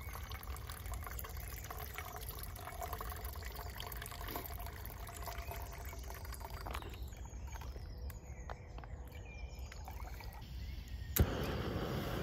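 Water squeezed from a soft pouch through a filter, trickling into a metal pot and thinning after about seven seconds. About eleven seconds in there is one sharp click, after which a gas canister stove burner runs with a steady hiss.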